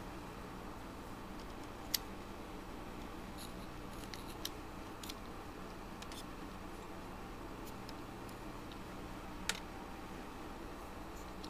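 Small scattered clicks and taps of plastic gearbox parts and pliers being handled, with two sharper clicks about two seconds in and near the end, over a steady low hum.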